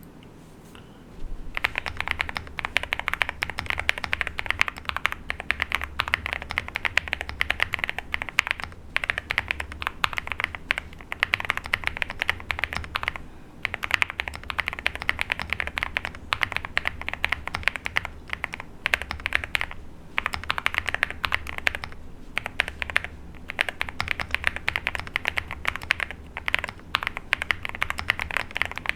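Fast continuous typing on a Weikav Record Alice mechanical keyboard with Tecsee Ice Strawberry switches: rapid key clacks with a low thock under them, starting about a second and a half in and broken by two brief pauses.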